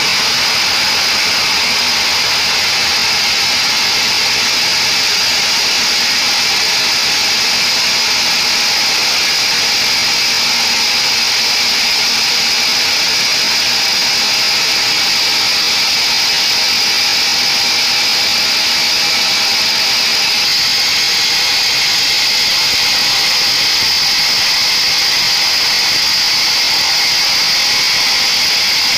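Band sawmill running, its blade cutting lengthwise through mahogany: a loud, steady machine noise with a strong high-pitched whine.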